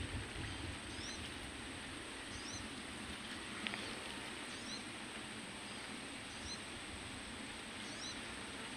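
Faint high chirps from a small animal, a short rising note repeated about every second and a quarter over a steady faint hiss, with a single click near the middle.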